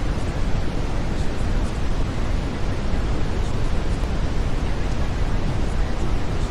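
Steady brown noise: an even, unbroken hiss weighted toward the low end, like a deep rushing.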